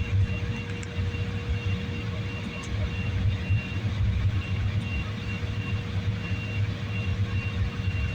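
Steady low rumble of an aircraft cabin in flight, with a constant hum and a faint high tone pulsing on and off at an even pace.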